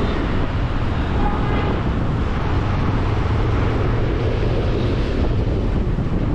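Steady wind rush over the microphone of a moving motorbike, mixed with the engine and street-traffic noise.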